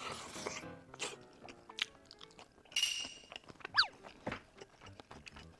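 Faint background music under scattered eating sounds: short clicks and clinks of utensils and mouth sounds while eating braised beef feet, with a brief hissy burst about three seconds in.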